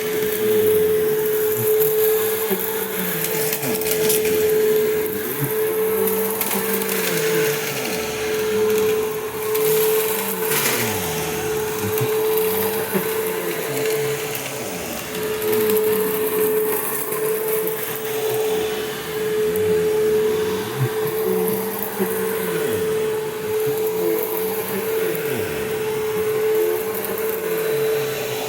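2003 Simplicity Symmetry upright vacuum cleaner running, with a constant high motor whine over the rush of air. The lower part of the sound swells and eases about every two seconds.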